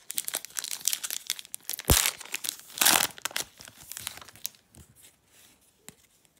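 Foil wrapper of a Panini Contenders football card pack crinkling as it is torn open by hand, with sharp rips about two seconds in and again near three seconds. After that comes fainter rustling as the cards are slid out.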